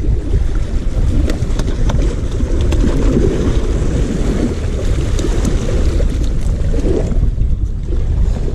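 Wind buffeting the microphone, a loud steady rumble, over water washing against the rocks, with a few faint clicks from footing on the rocks.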